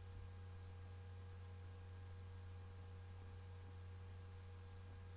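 Near silence: quiet room tone with a steady low electrical hum.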